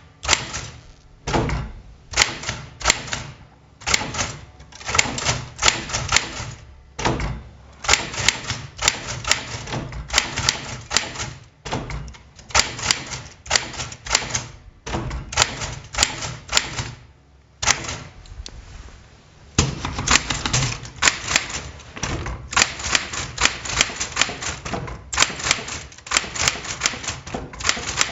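Smith Corona Sterling manual typewriter being typed on: runs of sharp key strikes, several a second, broken by short pauses, with a longer lull about two thirds of the way in.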